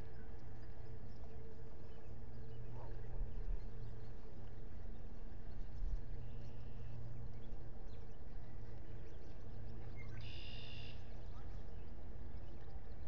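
Steady low outdoor hum on the nest camera's microphone, with a short high-pitched bird call about ten seconds in.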